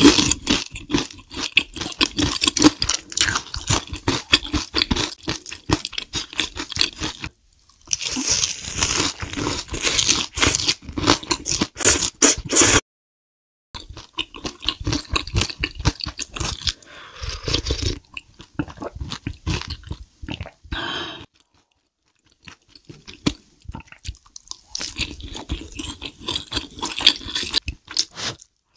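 Close-miked eating sounds: crunching and chewing on battered fried food, with wet slurps of noodle soup taken from a wooden spoon. The sound breaks off abruptly to dead silence several times between spliced clips.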